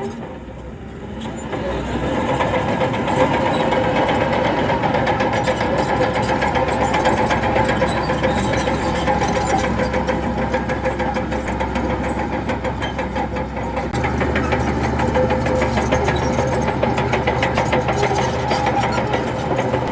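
Heavy diesel earthmoving machinery running steadily, from a bulldozer or dump trucks. The sound is briefly quieter at the start and the low hum shifts about two-thirds of the way through.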